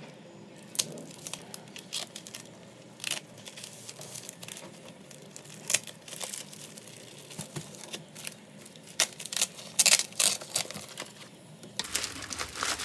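Plastic parcel wrapping and packing tape being cut with scissors and torn open by hand: irregular crinkling and tearing, busiest about nine to eleven seconds in.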